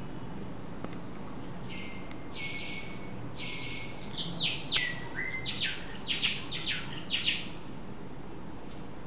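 A songbird the uploader calls a tordo singing: starting about two seconds in, two or three drawn-out buzzy notes, then a quick run of short notes that each fall in pitch, ending a couple of seconds before the end.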